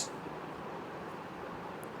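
Low, steady background hiss (room tone / recording noise) with no distinct sound event.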